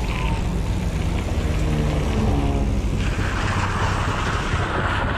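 Street traffic heard from a moving bicycle: a steady low rumble with car engines passing. An engine note shows about a second and a half in, and a hiss swells about three seconds in.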